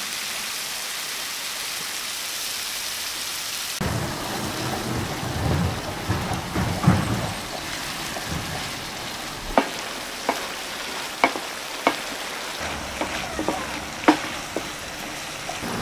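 Tomato, onion and green-pepper menemen base simmering in a large pan, a steady sizzling hiss. About four seconds in the sound changes to stirring with a wooden spoon: scraping, with several sharp knocks of the spoon against the pan.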